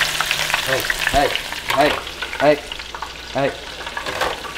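Breaded fish pieces deep-frying in the basket of an electric deep fryer: the oil bubbles and crackles steadily. About half a dozen short pitched sounds that rise and fall sit over the frying.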